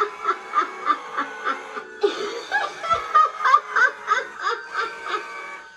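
Harriet Hustle animatronic's recorded laugh playing through its speaker: a high giggling cackle in quick repeated bursts, about three a second, fading out near the end.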